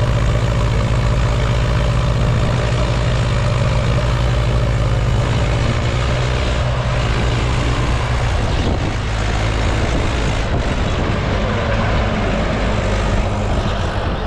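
A Mahindra 585 DI tractor's diesel engine and a JCB backhoe loader's diesel engine running hard together, the backhoe shoving the fully loaded trolley while the tractor pulls itself out of the mud. The deep, steady engine drone eases a little in the second half as the rig comes free.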